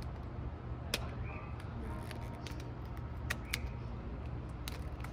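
Rubber bands being stretched over a watermelon and let go, giving several sharp, irregular snaps against the rind over a steady low hum.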